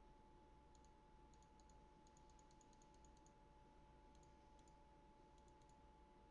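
Near silence: faint room tone with a steady low hum and runs of faint, quick clicks.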